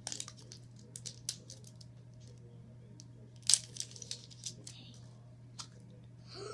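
Small plastic putty capsule and its packaging handled: scattered plastic clicks and light crinkles, the loudest click about three and a half seconds in, over a steady low hum.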